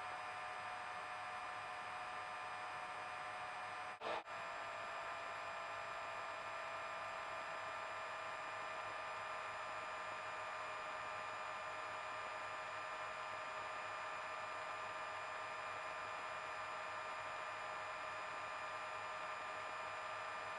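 Faint steady hiss and hum from a helicopter's headset intercom with nobody talking, with several faint steady whining tones; a brief click about four seconds in.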